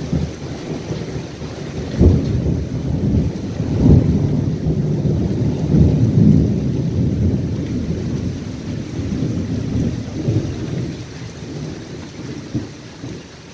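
Thunder during a rainstorm: sharp claps about two and four seconds in that roll on as a long low rumble and die away near the end, with rain falling steadily underneath.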